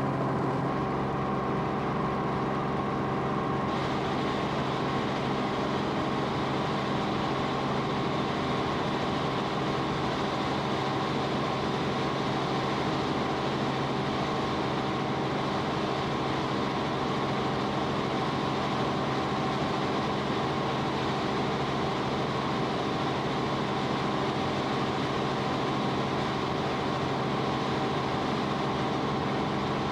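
Steady engine drone of an aircraft heard from inside its cabin, an even hum with a constant low pitch.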